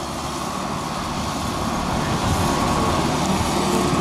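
Kubota engine of a homemade crawler-track rotary tiller running steadily as the machine moves through a wet rice paddy.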